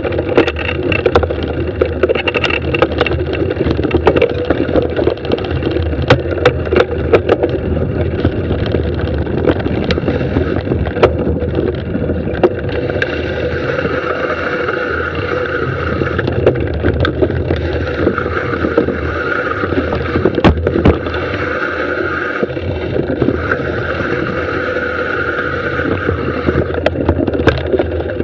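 Mountain bike descending a dirt singletrack at speed: a constant rush of wind and tyre noise with frequent sharp rattles and knocks as the bike goes over bumps and roots.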